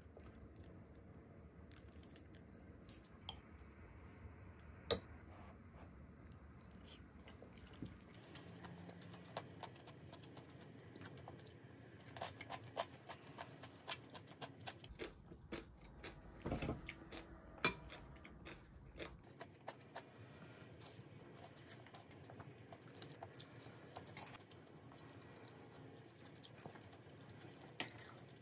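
Eating at a table: scattered sharp clicks of metal chopsticks and a metal spoon against ceramic bowls and plates, with soft chewing and crunching of fried breaded cutlets. The clicks come thicker in the middle, and a few stand out clearly.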